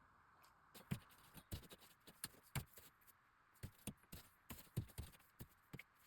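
Foley props being handled: a quick, irregular run of faint sharp clicks and taps, about twenty of them, with no steady rhythm.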